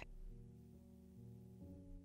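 Faint soft background music under the narration: quiet sustained notes, shifting to new notes about three quarters of a second in and again about a second and a half in.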